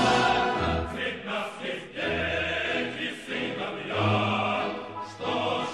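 Choir singing with instrumental accompaniment.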